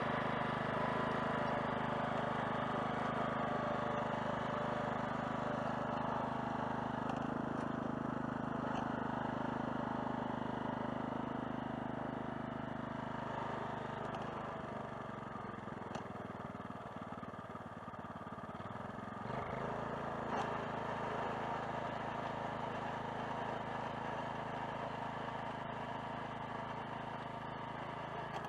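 A farm machine's engine runs steadily, easing off about halfway through and then picking up again.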